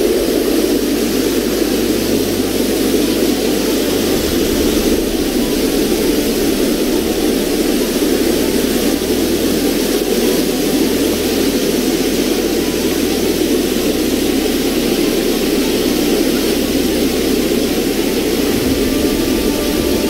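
Steady roar of water rushing over rocks in rainforest cascades, holding constant throughout.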